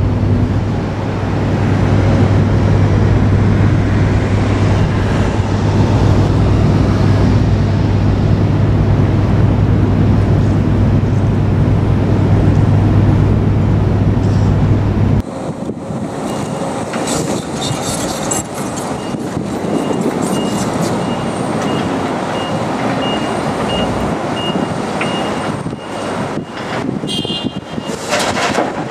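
Hydraulic excavators' diesel engines running with a steady low drone. Halfway through the sound changes abruptly to quieter machine noise with knocks and a run of evenly spaced beeps from a machine's warning alarm, then a clatter near the end as rubble goes into a dump truck.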